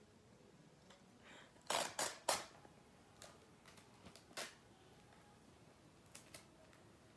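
Paper and tape being handled at close range: a few short, crisp crackles, the loudest three close together about two seconds in, then a few fainter ones.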